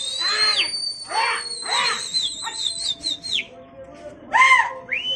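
A person whistling one long shrill note that rises into place and holds for about three seconds, with short shouted calls over it, then a shout and a second, shorter rising whistle near the end. These are pigeon flyers whistling and shouting to their flock in the air.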